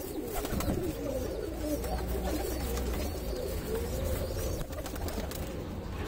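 Domestic pigeons cooing, a low wavering call that keeps going, with some light wing flutters in the first second.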